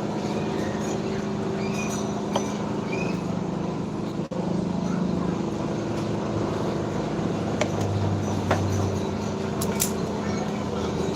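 Small engine running steadily, with a few sharp clicks over it.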